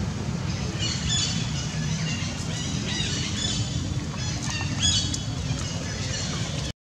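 Repeated short, high chirping and squawking animal calls over a steady low outdoor rumble; the sound cuts out abruptly just before the end.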